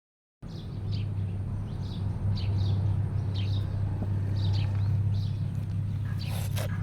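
Short high chirps, repeated every half second or so, over a steady low hum; a brief louder noise with a falling tone comes near the end.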